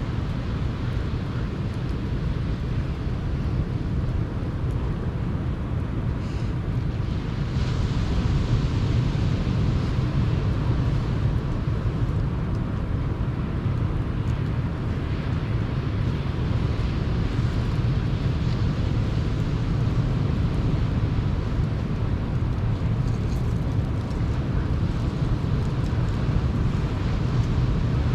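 Sea surf rushing steadily onto the shore, with a low rumble and wind buffeting the microphone, and a few faint crackles from a campfire now and then.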